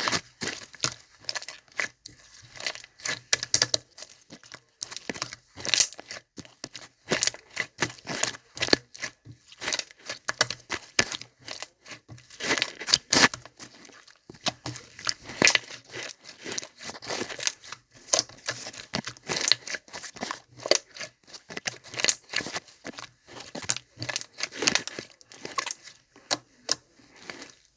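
Clear, jelly-like slime being squeezed and stretched by hand, giving an irregular, continuous run of sticky crackles and pops.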